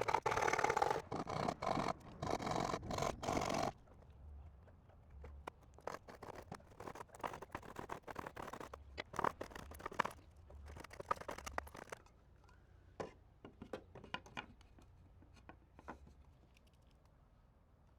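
Saw cutting a notch in a wooden trim board for about the first four seconds, in short repeated strokes, stopping abruptly; then quieter scraping and light clicks as the wood is handled.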